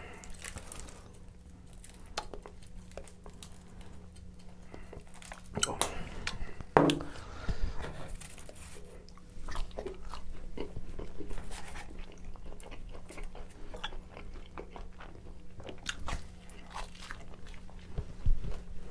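Close-miked biting and chewing of pizza, with bouts of crunching crust and wet mouth clicks coming and going.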